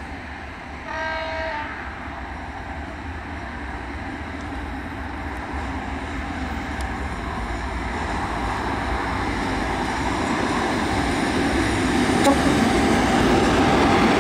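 Class 44 electric locomotive sounds one short horn blast about a second in, then its running noise grows steadily louder as it pulls its passenger coaches out and comes closer.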